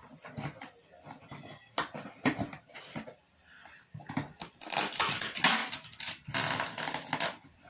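Packing tape on a cardboard box being scored with a small blade, short scratchy clicks, then a shipping label pouch and tape peeled off the cardboard in two longer tearing, crinkling rasps near the end.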